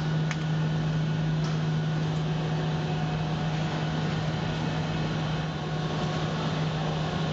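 Steady low machinery hum over an even hiss of air-handling noise, with two faint clicks in the first couple of seconds.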